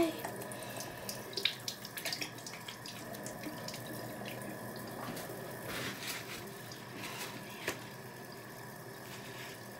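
Bathroom sink tap running while hands are rubbed and rinsed under it, with scattered splashes and drips: sticky face mask being washed off the hands.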